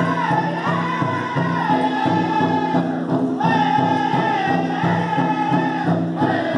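Powwow drum group singing together over a fast, steady drumbeat on a big shared drum, for fancy dancing.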